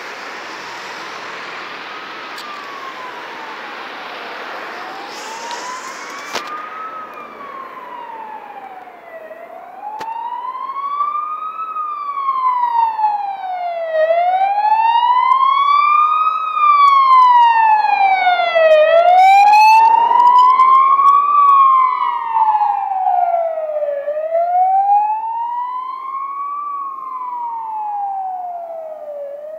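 Ambulance siren in slow wail, its pitch rising and falling about every five seconds. It grows louder as the ambulance approaches, is loudest about two-thirds through as it passes, then fades. A passing car's road noise is heard in the first few seconds.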